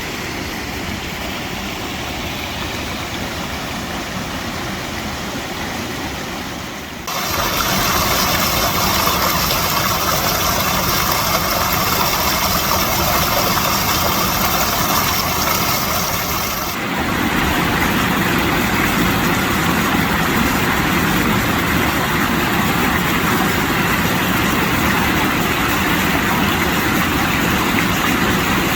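Steady rush of flowing and falling river water. Its tone changes abruptly twice, about seven and seventeen seconds in: brighter and louder in the middle section, deeper in the last.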